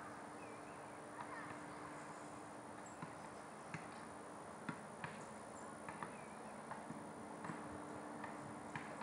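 A basketball bouncing on a distant asphalt court: about a dozen short, sharp knocks at uneven intervals, faint under a steady background hum.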